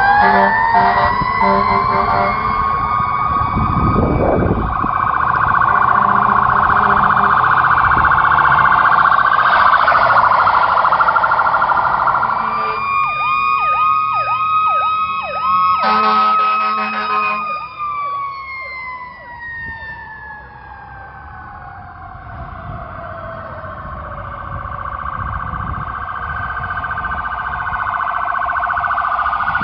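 Fire truck's electronic siren sounding on a code-3 response: a rising then steady wail, switching to a fast warbling yelp about halfway through, then a long falling glide before winding up again near the end.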